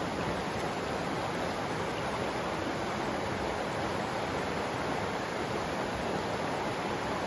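Shallow rocky river running over stones and through small riffles: a steady, even rush of water.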